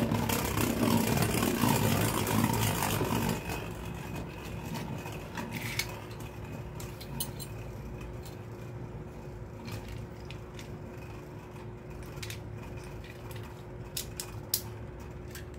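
Beyblade spinning tops whirring and scraping against a clear plastic stadium bowl, loudest for the first three seconds or so after launch. Then a single top spins on with a quieter steady whir and scattered light clicks.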